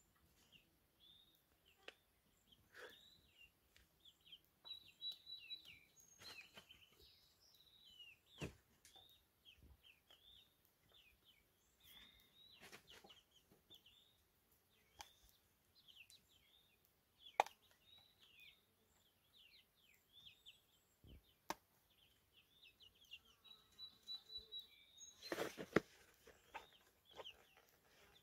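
Young pullets softly peeping and cheeping: many short, high calls scattered throughout, with a few sharp clicks, the loudest near the end.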